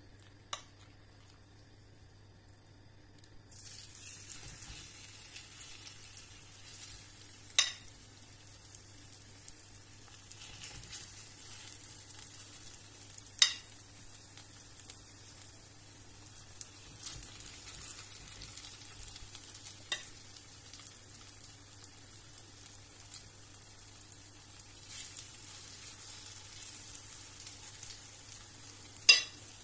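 Grated potato and carrot fritter batter sizzling in hot olive oil in a frying pan, the sizzle starting a few seconds in as the batter goes into the pan. A few sharp clinks of a metal spoon against the pan are the loudest sounds.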